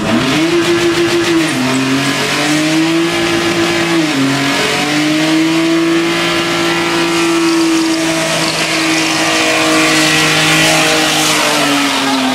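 Nissan Skyline GT-R doing a burnout: the engine is held at high revs with the rear tyres spinning and hissing. The revs dip briefly about one and a half and four seconds in, then hold steady and start falling near the end.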